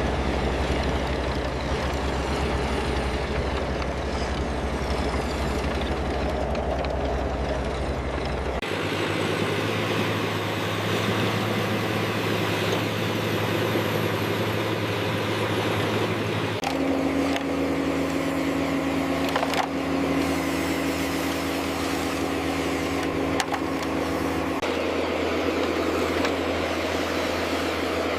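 Heavy diesel engine sound of construction machinery running steadily. The engine note changes abruptly three times, about a third, three fifths and nine tenths of the way through, switching to a different engine sound each time. A few light clicks come in the middle part.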